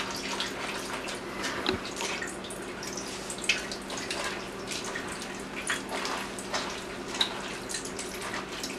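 Tamarind pulp squeezed by hand in a metal mesh strainer, its liquid trickling and dripping into a pot below, with irregular small clicks and splats as the pulp is worked against the mesh. A steady low hum runs underneath.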